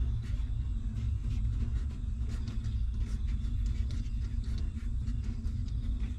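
Newborn puppies suckling at their mother's teats, making faint, rapid little clicks, over a steady low rumble.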